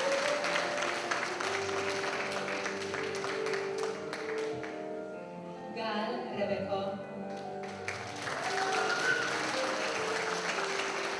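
Audience applause over music; the clapping dies away about halfway through, leaving the music on its own, then picks up again about two-thirds of the way in.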